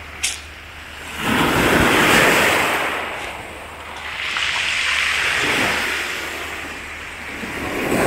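Storm surf breaking and washing up over a pebble beach, the noise surging and ebbing with each wave: two surges, with a third building near the end.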